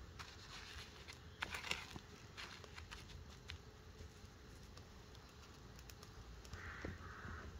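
Faint crunching and crackling of crushed Dorito crumbs as egg-coated Babybell cheeses are pressed and rolled in them, with a few sharper crunches about one and a half seconds in.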